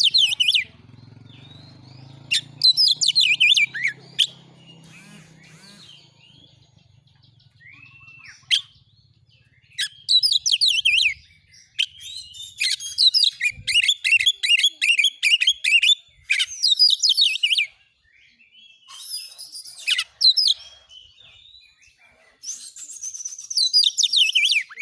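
Oriental magpie-robin singing loud, rapid-fire bursts of chattering, whistled notes, each burst lasting about a second or a few seconds, with short pauses between them. About eight seconds in there is a single rising whistle. This is the insistent song that keepers call 'nembak'.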